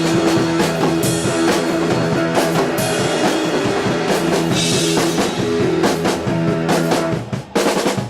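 Rock band playing, with drum kit and guitar; the playing breaks off for a moment near the end.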